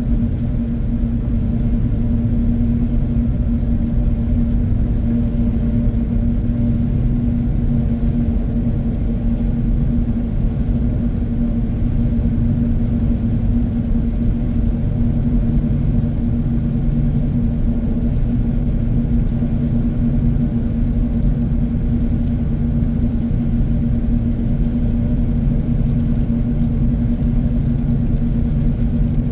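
Steady low rumble of a vehicle driving on a wet road, heard from inside the cabin, with a constant hum over the road noise.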